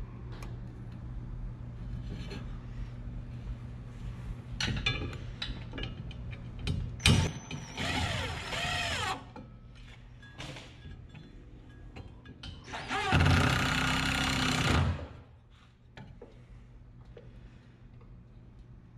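Cordless drill-driver running screws through a metal filter bracket into a wooden board: two runs of about two seconds each, the second one louder, with a few clicks of handling between them.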